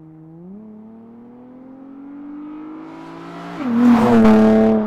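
Infiniti G35 sedan's 3.5-litre V6 running through a Z1 cat-back touring exhaust as the car accelerates toward the camera and passes by. The exhaust note climbs steadily, then grows much louder and drops in pitch as the car goes past, and cuts off suddenly near the end.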